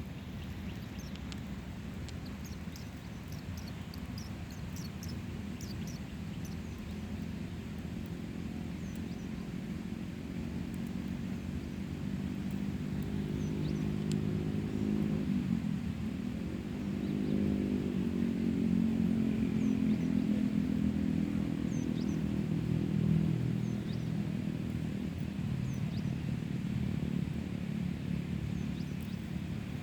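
A motor engine running steadily, its drone dipping in pitch about halfway through and then rising again.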